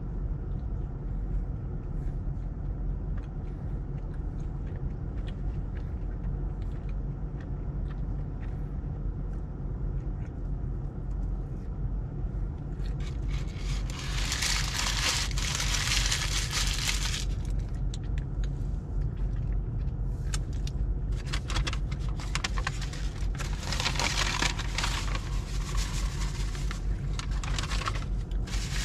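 Steady low car rumble heard inside the cabin. A loud rustling, crackling noise cuts in about halfway through for a few seconds, then returns in broken bursts near the end.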